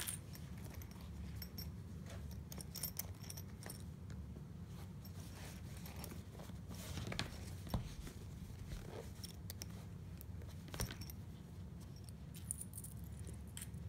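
Hands handling a fabric purse and putting sewing clips on its folded layers: scattered small clicks and rustling over a steady low hum, with a sharper click nearly 8 s in and another near 11 s.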